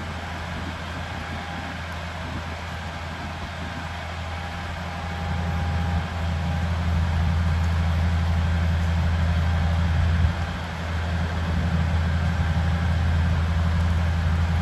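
Old bulldozer's diesel engine running with a deep, steady drone, growing louder about five seconds in and dipping briefly just after ten seconds.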